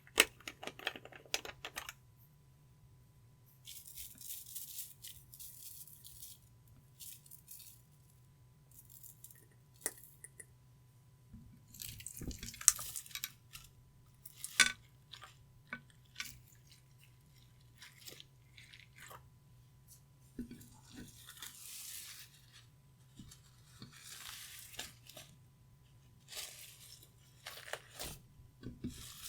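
Clear slime being worked by hand: sticky crackling and squelching in short bursts with pauses between, and a few sharp pops or clicks.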